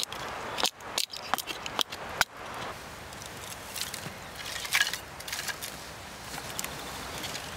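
Wood cracking as thin kindling strips are split off a board on a chopping stump: a few sharp snaps in the first two seconds. Then split wooden sticks clatter and rustle as they are laid in a pile on the ground.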